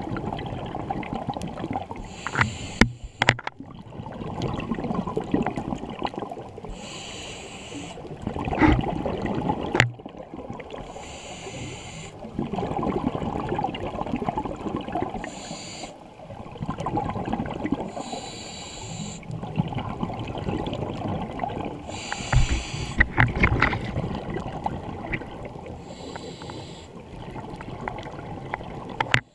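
A scuba diver breathing through a regulator underwater: a short hiss of each inhalation about every four seconds, with the bubbling rumble of exhaled air between them.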